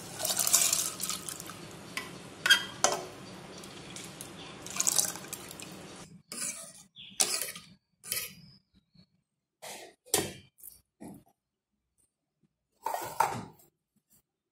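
Soaked toor dal and its water poured into an aluminium pot of boiling water with a splash, followed by metal clanks over a steady low hum. The hum stops about six seconds in, and a metal spoon then stirs and scrapes in the pot in a string of separate clinks.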